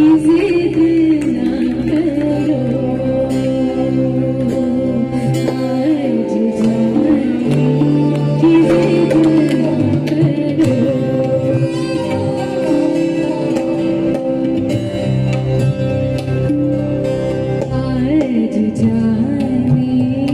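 Live Indian ghazal music: a woman singing a slow, ornamented melody with a wavering pitch over steady held keyboard chords, accompanied by violin, guitar and tabla.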